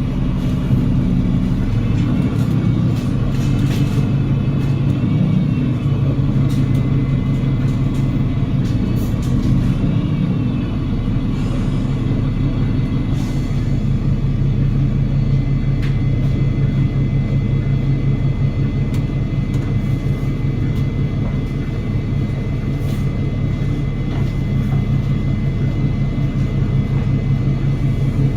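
Onboard a double-decker bus under way: the Cummins L9 diesel engine and Voith DIWA automatic gearbox running with a steady low drone. The engine pitch shifts in the first few seconds, then holds steady, with a thin high whine running alongside.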